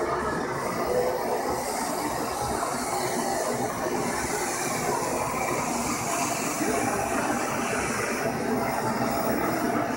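Hand-held gas torch burning with a steady hiss as its flame is played along a slate pool-table seam to melt beeswax pellets into it.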